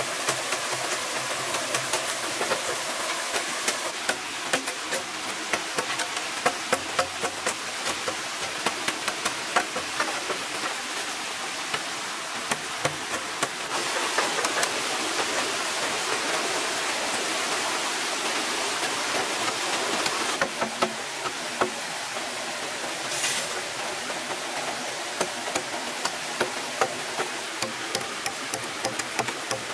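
A broad-bladed knife chopping into a green bamboo pole: a run of sharp, irregular chops, over the steady rush of a stream.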